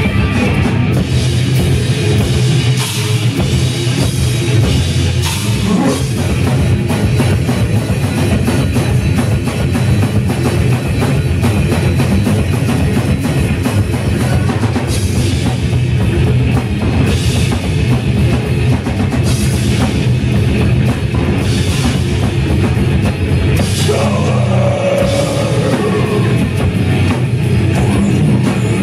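Live metal band playing loud: distorted electric guitars over fast, driving drums on a full kit.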